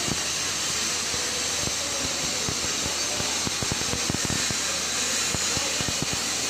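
Electric arc welding: a steady sizzling hiss with irregular crackling pops from the arc.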